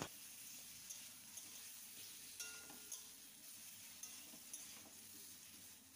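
Potato chunks frying in oil in a kadai: a faint sizzle, with light scattered taps and scrapes of a spatula stirring them.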